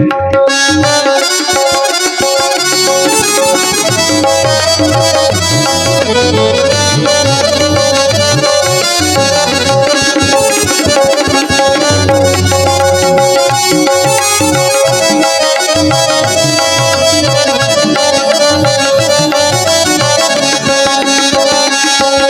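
Instrumental interlude of Indian devotional music: a harmonium holding sustained chords over a quick tabla rhythm.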